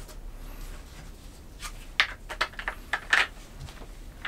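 Handling noise from plastic and metal office chair parts being fitted together: a few light clicks and knocks, the loudest about two seconds in and again about three seconds in.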